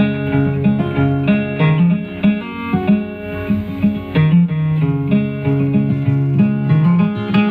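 Guitar playing a song's instrumental intro: a steady run of picked notes that change every quarter to half second.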